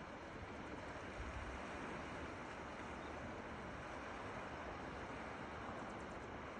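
Steady wash of surf and wind on a shore.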